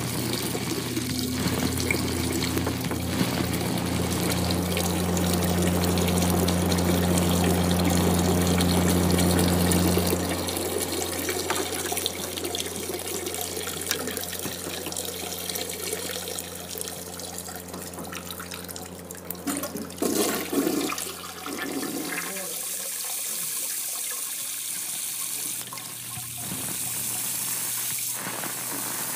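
A toilet flushing and water rushing, over a steady low hum that drops away about ten seconds in.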